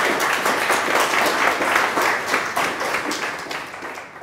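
Audience applauding, a dense patter of many hands clapping that fades toward the end.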